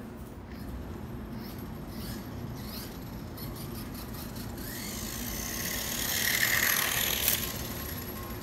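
Small electric RC short-course truck running on concrete: its motor and gears whine, swelling louder and rising in pitch about five seconds in, then easing off, over a low rumble.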